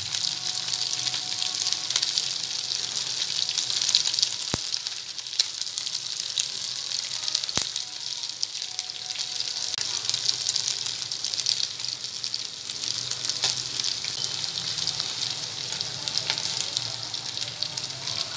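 Marinated chicken pieces frying in oil in a non-stick kadai: a steady, crackling sizzle.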